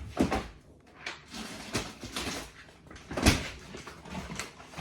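Meal-kit bags being handled and set down: rustling with a few knocks, the loudest about a quarter of a second in and just after three seconds.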